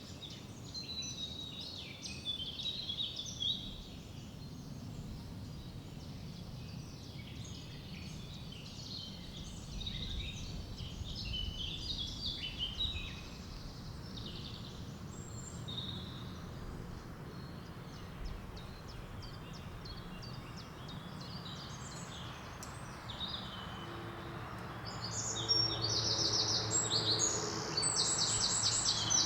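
Small woodland birds chirping and singing in short phrases over a steady low rush of river water and wind. Near the end one bird's fast, repeating trill grows louder, and a low hum comes in under it.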